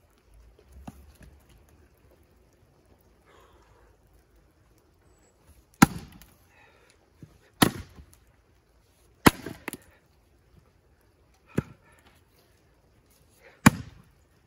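Splitting axe striking firewood rounds: about six sharp chops, roughly one every two seconds, starting about six seconds in, two of them in quick succession midway.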